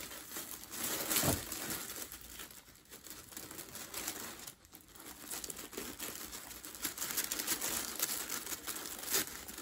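White tissue wrapping paper rustling and crinkling as hands unfold it and lift its sticker seal: an uneven run of soft crackles with a brief lull about halfway through.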